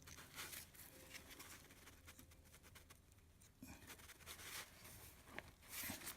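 Faint scratching and small plastic clicks from hands working the ignition coil wiring connectors on an engine, with a cluster of clicks in the last two seconds or so.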